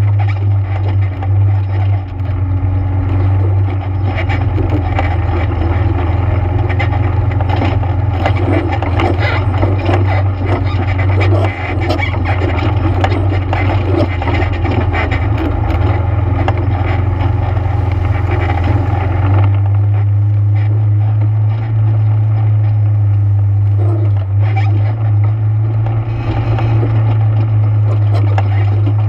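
ATV engine running steadily under way, with constant rattling and knocking over the engine hum; the engine note changes about two-thirds of the way through.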